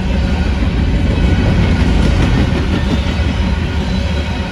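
Freight train of open-top hopper cars rolling past: a loud, steady rumble of steel wheels on the rails with a clattering rattle from the cars.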